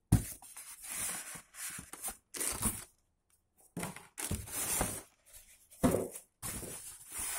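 Polystyrene foam packing inserts being worked out of a cardboard box, rubbing and scraping against the cardboard and the plastic wrap in a run of short, irregular rustling bursts.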